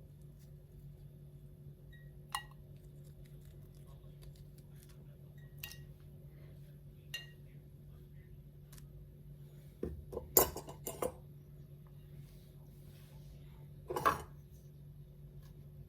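Kitchen utensils and glassware clinking: three light, briefly ringing clinks, then a cluster of louder knocks and clatters around ten seconds in and another near the end, over a steady low hum.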